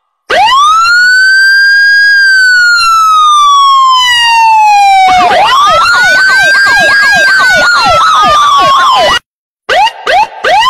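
Electronic siren wailing. It rises quickly and falls slowly over a few seconds, then rises again about five seconds in, with a fast up-and-down yelp over the wail. It cuts off suddenly and gives way to a few short rising whoops near the end.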